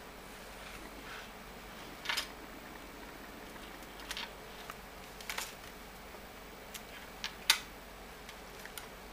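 Scattered sharp clicks and light knocks as hands handle an audio cable plug and a small media player by a portable speaker, over a faint steady hiss. The sharpest click comes near the end.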